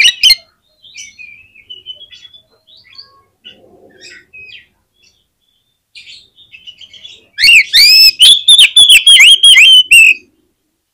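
Oriental magpie-robin (kacer) singing: a loud chirp at the start, then soft scattered chirps and short whistles, and about seven seconds in a loud, rapid run of repeated hooked whistles lasting about three seconds.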